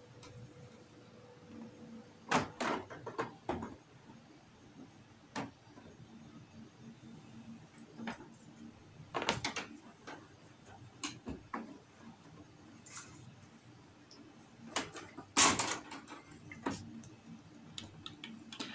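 Scattered clicks and knocks of an LCD TV panel being set onto its plastic frame and seated into the corners, in a few small clusters with quiet gaps between.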